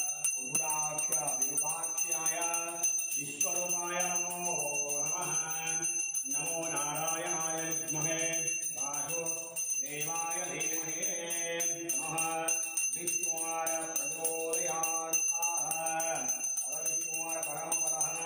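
Brass puja hand bell rung continuously and rapidly during aarti, with a voice chanting in long, sung phrases that pause briefly every few seconds.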